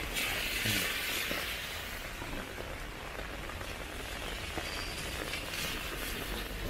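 Rain falling on a city street: a steady hiss that swells about a second in and again near the end.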